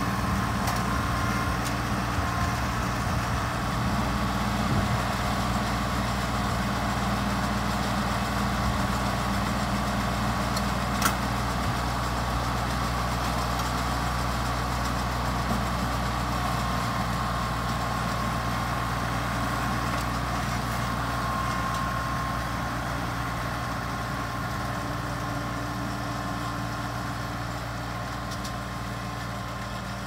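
Compact tractor engine running steadily while it pulls a mini round baler baling hay, the baler's steady whine mixed in with the engine hum. The sound fades gradually over the last several seconds as the tractor moves away.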